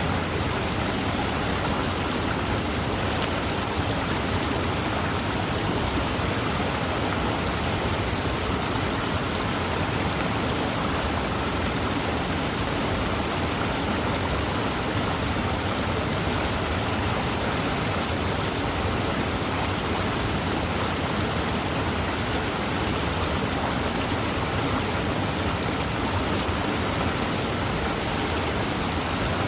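Fast-moving river flowing: a steady, even rush of water.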